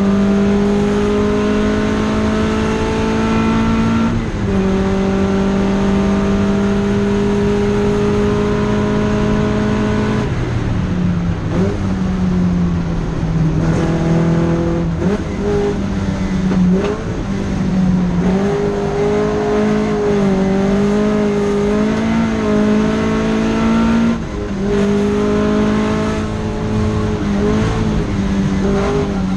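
Datsun Fairlady 2000 (SR311) engine running hard at a steady pitch, with sudden drops in pitch about 4, 10 and 24 seconds in. The note dips lower and wavers in the middle stretch.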